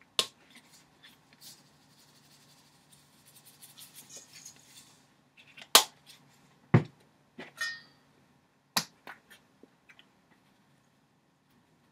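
Salt canister and pepper tin being opened and handled: several sharp clicks, a faint rustle for a couple of seconds, a dull thump about seven seconds in as a container is set down on the table, and a short scrape just after.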